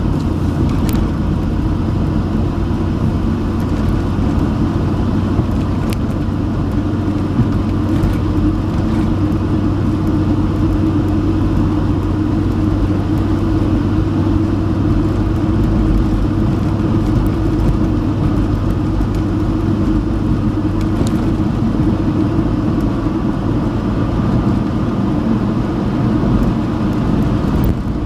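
A vehicle driving steadily along a gravel road: an even rumble of tyres on gravel and engine drone, heard from inside the cab. A few faint clicks stand out now and then.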